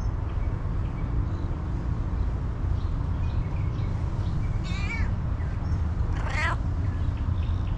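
A stray cat meowing twice, about a second and a half apart, the second call louder, over a steady low rumble.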